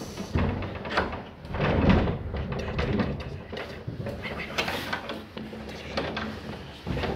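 Wooden door being handled: irregular knocks, rattles and scrapes of the door and its fittings, with low voices.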